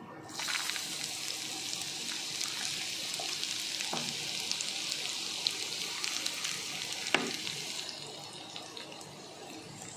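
Chopped garlic and whole dried red chillies sizzling in hot ghee in a frying pan, a steady crackling sizzle with scattered pops and a couple of louder ones. The sizzle eases off near the end.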